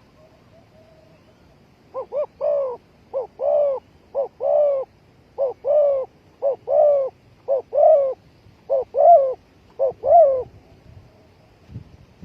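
Spotted dove cooing: a run of soft coos, each a short note or two followed by a longer one, repeated about once a second, starting about two seconds in.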